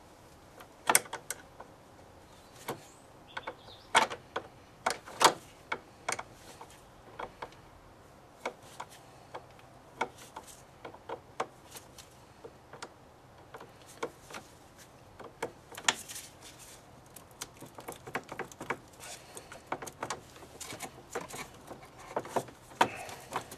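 Scattered sharp metallic clicks and taps of a small spanner working the clamp nut on a car battery's positive terminal, with the terminal and cable being handled.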